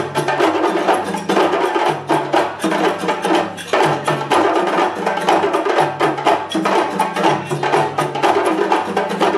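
Ensemble of djembe hand drums playing together in a fast, steady rhythm: a dense stream of sharp hand slaps over deep bass tones that recur throughout.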